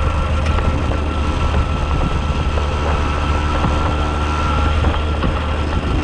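Moped engine running steadily while riding along, with wind noise on the microphone.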